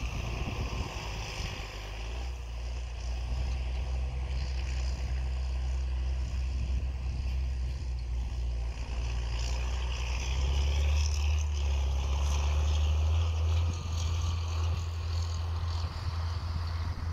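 John Deere tractor pulling a Sprayer Specialties field sprayer, running steadily at a distance, heard as a low rumble that swells about ten seconds in, with a hiss of outdoor noise over it.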